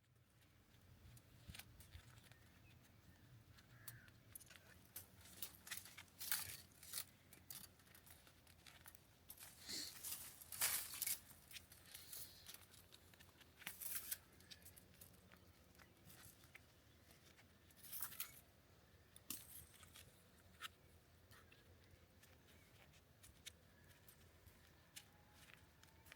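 Faint, scattered rustling and small clicks from hands-on work on the fence, such as wire and brush being handled, with brief louder rustles now and then.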